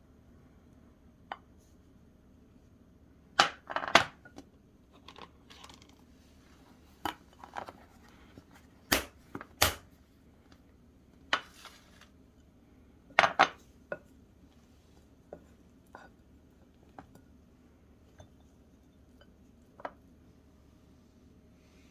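Kitchen handling sounds: a string of irregular sharp clacks and knocks, like dishes and utensils being set down and moved, with some crinkling. The loudest clacks come about 4 s, 9 s and 13 s in.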